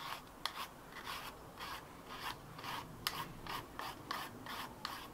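Julienne peeler with a serrated blade scraping down a carrot in repeated strokes, about two or three a second, shaving it into thin strips onto a wooden chopping board, with an occasional sharp click.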